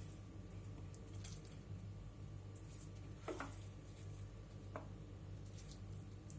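Faint, soft squishes and scrapes of a spoon moving cooked, soft pumpkin sabzi in a pan, a few separate strokes, over a steady low hum.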